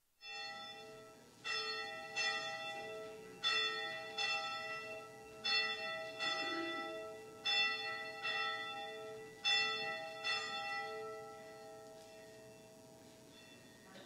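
Church bell tolling to call the start of the worship service, about eleven strokes, mostly in pairs roughly two seconds apart. Each stroke rings on, and after the last the sound dies away over the final few seconds.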